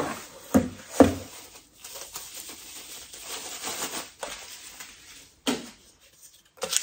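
Cardboard box handled, with two dull knocks about half a second apart near the start, then white packing paper rustling and crinkling for a few seconds as an item is unwrapped, and another knock near the end.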